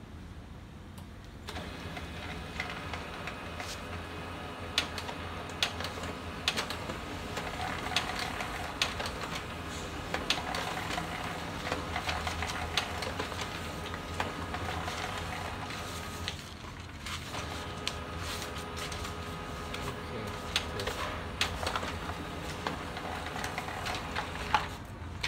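HP LaserJet P3015 laser printer running a print job: rollers whirring with rapid clicking and ticking as sheets feed through. It starts a second or so in, pauses briefly about two-thirds of the way through, then runs again and stops near the end. This is a test print after its fuser film has been replaced.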